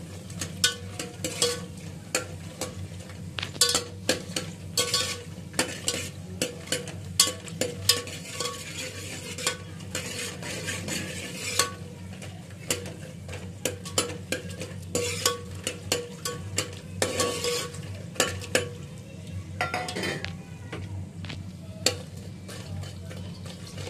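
Slotted metal spatula scraping and clicking against an aluminium pot, in quick irregular strokes, as makhana (fox nuts) are stirred and fried in hot mustard oil, with the oil sizzling underneath.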